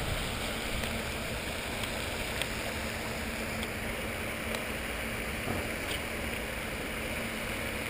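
Steady outdoor background noise: a low rumble with a faint steady hum, and a few faint ticks scattered through it.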